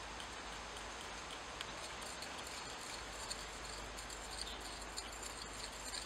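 A thin metal rod stirring melted asphaltum, wax and rosin in a small stainless steel pot: faint, irregular light ticks and scrapes over a steady hiss.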